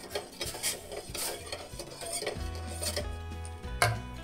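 Metal spoon stirring and scraping around the bottom of a stainless-steel bowl of hot water, dissolving sugar: a run of short rasping strokes, with a louder knock of spoon on steel near the end.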